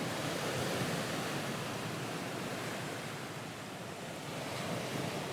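Ocean waves washing on a shore: a steady surf hiss that ebbs and swells gently, added as a relaxation background.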